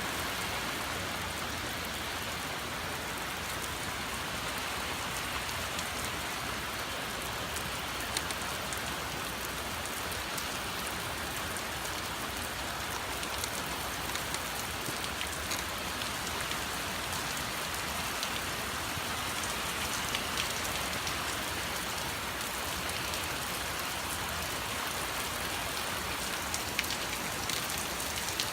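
Heavy rain from a squall line falling steadily, with scattered sharper drop ticks.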